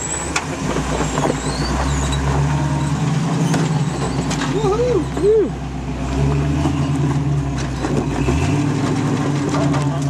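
First-generation Ford Bronco's engine running under load as it crawls over a dirt ledge, with the throttle coming up and easing off a few times. About halfway through there are two short rising-and-falling squeaks.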